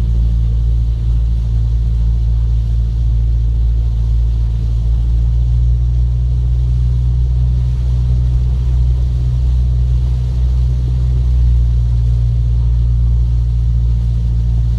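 Steady low rumble of a car engine idling, unchanging throughout.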